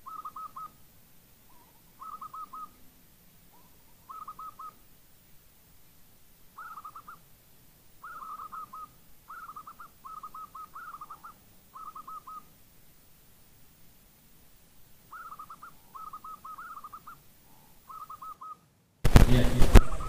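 Zebra dove (perkutut) cooing: short phrases of quick, trilled coos, each about half a second long, repeated every second or two. About a second before the end it cuts suddenly to loud voices and crowd noise.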